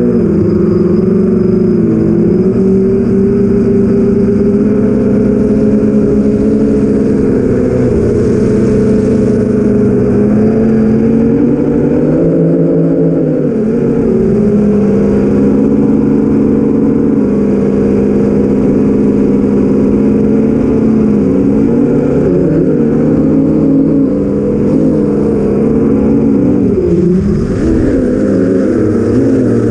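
Four brushless motors (BrotherHobby Avenger 2812 1115kv) spinning 8-inch props on an FPV drone in flight: a loud, steady multi-tone buzzing hum whose pitch rises and falls with the throttle, dipping and wavering most around the middle and shortly before the end.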